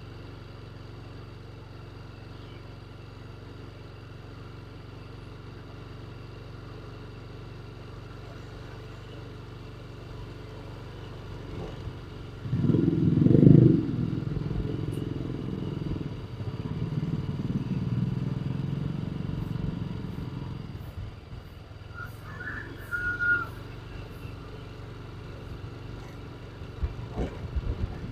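Motorcycle engine running steadily while riding slowly. The engine noise grows much louder about twelve seconds in, loudest for a moment near thirteen seconds, and stays raised for several seconds before settling back to the steady hum.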